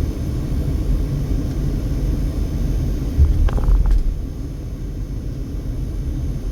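Low, steady rumble of a car's engine and tyres heard from inside the cabin while driving slowly. A brief louder knock or clatter comes a little past halfway.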